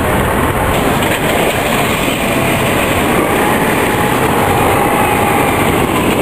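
A vintage Lisbon electric tram (a Remodelado) rolling past close by on street rails: its wheels rumble and clatter steadily over the track. A faint wheel squeal rises and falls in the middle.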